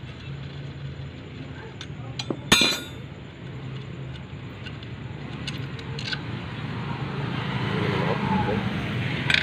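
Steel hand tools clinking against a motorcycle's clutch assembly, with one loud ringing metal clank about two and a half seconds in. A rushing background noise grows louder toward the end.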